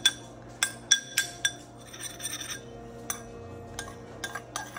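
Metal spoon clinking and scraping against a ceramic bowl as sticky sourdough starter is scraped out of it: several sharp clinks in the first second and a half, a short scrape about two seconds in, then scattered lighter taps.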